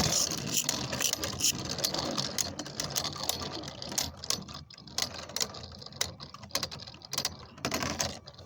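Two Beyblade Burst spinning tops clashing and grinding against each other in a plastic Hypersphere stadium: a dense, rapid clicking and rattling that fades as the tops lose speed.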